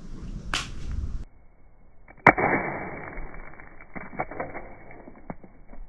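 An old Samsung flip phone, thrown open, lands with one sharp impact about two seconds in, then clatters and rattles briefly, with a few small knocks as it settles.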